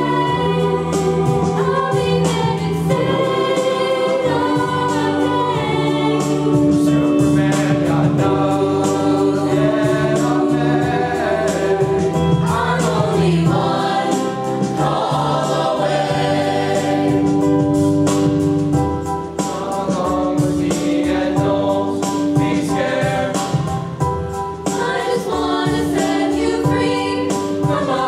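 A mixed student chorus singing in several parts, with long held chords.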